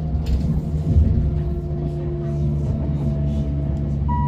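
Class 377/6 Electrostar electric multiple unit heard from inside the carriage: the traction motors give a steady whine of several held tones over the running rumble of the train. Near the end a new, higher tone sets in.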